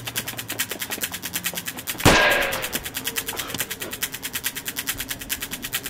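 A single handgun shot about two seconds in, with a long echoing decay. Under it runs a fast, steady ticking.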